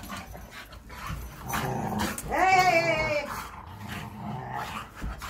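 Two dogs play-fighting: low growling and scuffling on the carpet, with one drawn-out whining yelp about two and a half seconds in that slides down in pitch.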